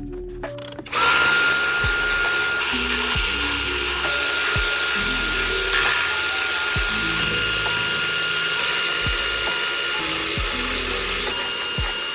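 Battery-powered electric ratchet wrench running with a steady motor whine as it spins out valve-cover bolts, starting about a second in and running on without a break.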